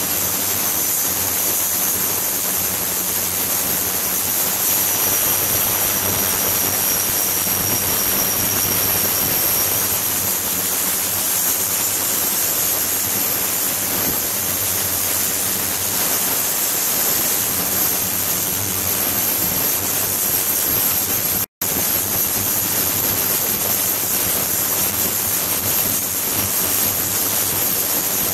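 Ultrasonic cleaning tank running with its transducers driving the water: a steady hiss of cavitating, churning liquid with a constant high-pitched whine above it and a low hum beneath. The sound drops out for an instant about 21 seconds in.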